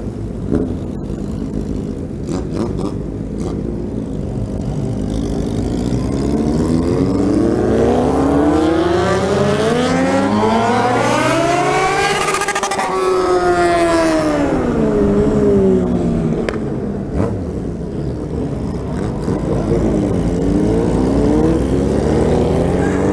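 Yamaha XJ6 inline-four motorcycle engine with an open, de-baffled exhaust, heard from the rider's seat while riding. The revs climb smoothly to a peak about halfway through, fall back over a few seconds, then start rising again near the end.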